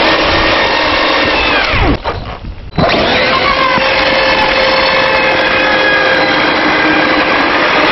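Two Traxxas RC monster trucks, a Hoss and a Maxx, pull against each other: their brushless electric motors whine at full throttle while the tyres spin in the dirt. About two seconds in, the whine falls away and the sound drops briefly. It picks up again with a rising whine just before three seconds.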